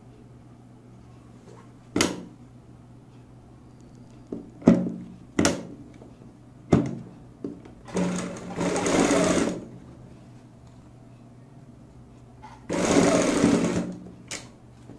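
Sewing machine stitching a seam in two short runs, one about eight seconds in and one about thirteen seconds in, each lasting a second or two. A few sharp single clicks come before and between the runs.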